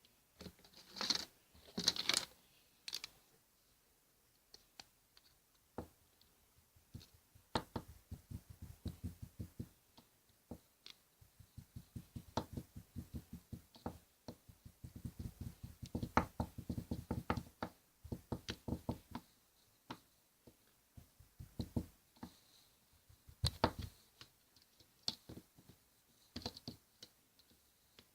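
Metal spatulas chopping and tapping on a steel cold plate while rolled ice cream is mixed, in fast runs of several taps a second with pauses between. A few louder scrapes come about one and two seconds in.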